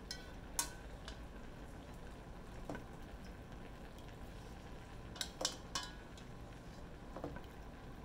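Cooking utensils knocking and scraping against a stainless steel pot and a wok while cooked angel hair pasta is lifted out and stirred into sauce: a few scattered clinks, with a small cluster about five seconds in, over a low steady background.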